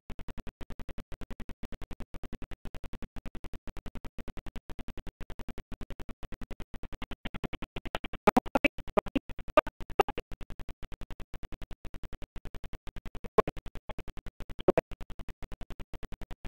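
Badly degraded recording: a low murmur chopped into rapid, even stutters about eight times a second, with a few louder crackles around the middle. The corruption comes from the file's sound deteriorating over the years.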